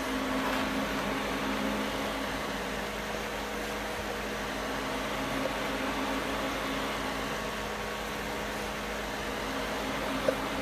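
Steady hum and hiss of a running fan, with one light click near the end.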